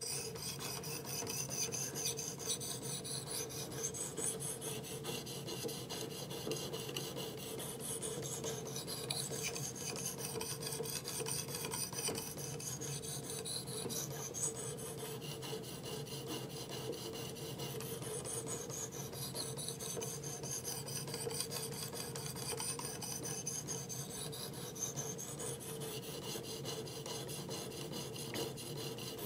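An 800-grit abrasive plate on a Work Sharp Professional Precision Adjust knife sharpener rasps without a break as it is stroked up and down along the edge bevel of a clamped knife blade. This is the 800-grit stage, which works out the striations left by 320 grit.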